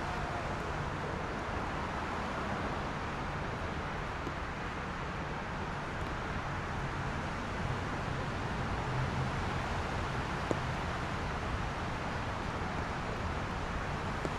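Steady wash of city traffic on rain-wet roads, tyre hiss and engine noise blended, with no single vehicle standing out. One faint tick about ten and a half seconds in.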